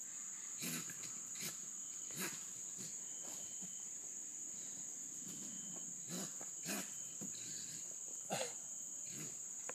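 Steady high-pitched chorus of night insects, such as crickets, with several short knocks or scuffles at irregular moments.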